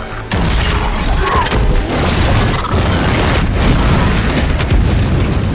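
A loud explosion bursts out about a third of a second in, then a sustained rumble with repeated crashing of fire and debris tearing through an aircraft cabin, with film score music beneath.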